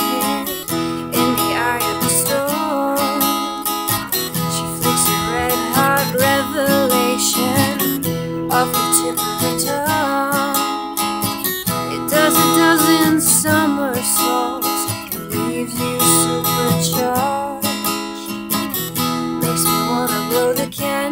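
Acoustic guitar strummed in a steady rhythm, with a young woman singing over it.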